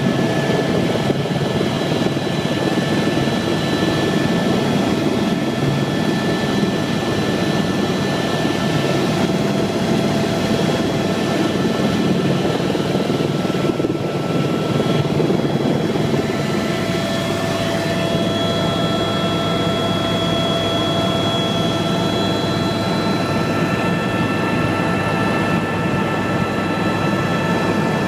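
Helicopter in flight: a steady, loud rotor and engine noise with thin, steady whining tones above it, which shift slightly in pitch about halfway through.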